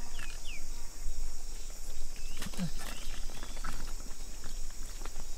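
Steady high-pitched insect chorus, like crickets or cicadas. Over it come a couple of short falling chirps near the start and scattered clicks.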